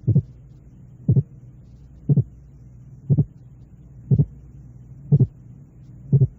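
Simulated split heart sound for auscultation training: seven beats about one a second, each a pair of short sounds 0.08 s apart, heard as two separate sounds. A steady low hum runs underneath.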